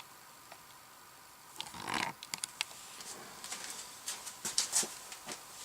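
A short rushing sound about two seconds in, then a run of light, irregular clicks and taps from handling.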